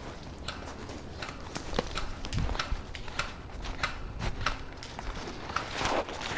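A string of irregular sharp clicks and snaps, a few a second, over a low rumble.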